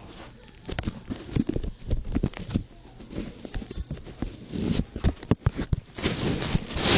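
An old man snoring: irregular clicks and knocks, then a long, loud rasping snore near the end.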